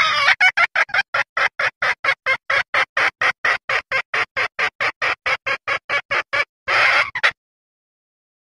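Junglefowl hen's mating call, used as a lure for males: a fast run of short clucks, about four or five a second, for some six seconds, then a longer call and two quick notes, after which it stops.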